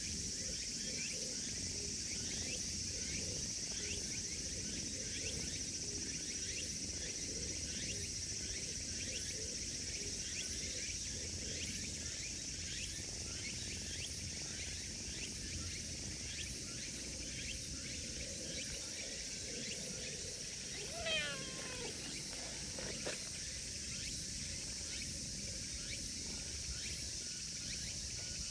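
A steady chorus of insects fills the background, and about 21 seconds in a cat gives one short meow that falls in pitch.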